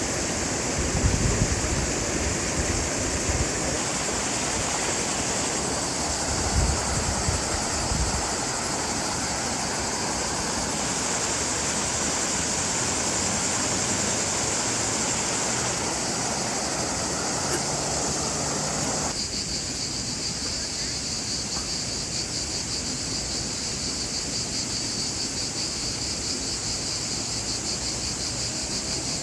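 A steady rushing noise like running water, with a few low thumps in the first eight seconds. It cuts suddenly to crickets chirping, a steady pulsing high trill, about two-thirds of the way through.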